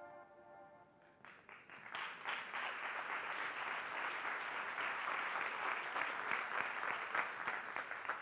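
Audience applauding. The clapping starts about a second in, swells within a second and keeps up as a dense, even patter, thinning at the very end.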